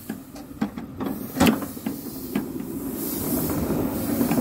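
7¼-inch gauge miniature train running along the track, its wheels giving irregular clicks over the rail joints, with a low rumble that builds and grows louder from about halfway.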